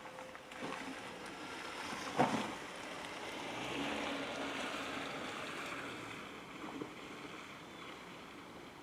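A vehicle passing on the road: tyre noise swells to a peak about four seconds in and fades away, with a sharp click about two seconds in.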